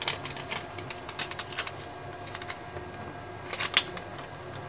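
Samsung battery's plastic label sticker crinkling and crackling as it is handled in the fingers: a run of small sharp clicks in the first second and a half, then a louder double crackle a little after three and a half seconds in.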